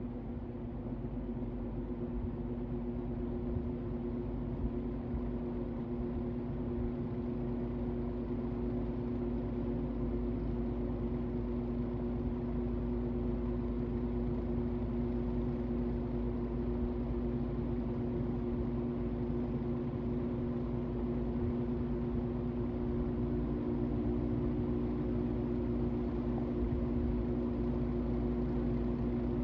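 Vintage General Electric box fan running, a steady electric motor hum over the rush of air, growing a little louder over the first several seconds.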